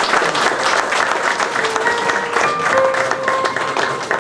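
Audience applauding with steady, dense clapping. From about one and a half seconds in, music with held notes starts up under the applause.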